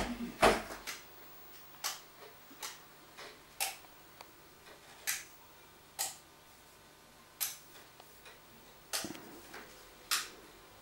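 Control buttons or switches clicking as they are pressed over and over: about a dozen short, sharp clicks at uneven intervals.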